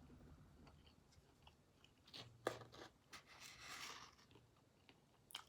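A person chewing food close to the microphone, faint, with a few sharp clicks and a short crunchy spell in the middle.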